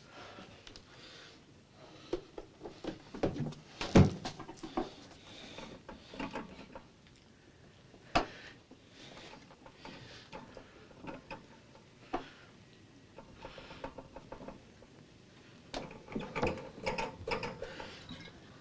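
Scattered knocks, clicks and rustles as a man moves about and steps onto a mechanical dial bathroom scale. One sharp knock about four seconds in is the loudest, and a second cluster of knocks and rustling comes near the end.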